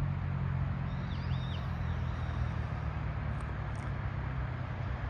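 Steady low hum of distant city traffic, with a few short high bird chirps about a second in.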